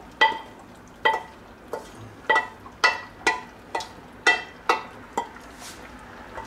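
A wooden spoon knocking and scraping inside a stainless steel saucepan as chopped tomatoes are scraped out of it. There are about ten ringing metallic knocks, roughly two a second, which stop about five seconds in.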